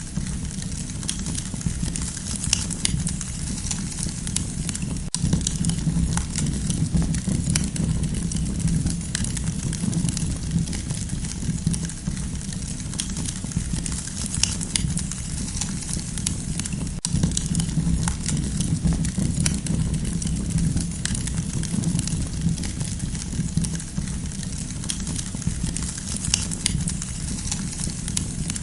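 Campfire burning with a steady low rush of flames and dense, irregular crackling and popping from the burning wood.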